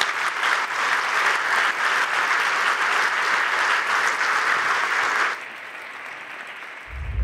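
Audience applause, a dense steady clapping that drops to a much softer level about five seconds in. A deep booming sound starts just before the end.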